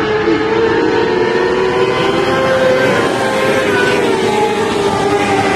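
Engines of several mini sprint race cars running on a dirt oval, overlapping, their pitch rising and falling gently as they drive around the track.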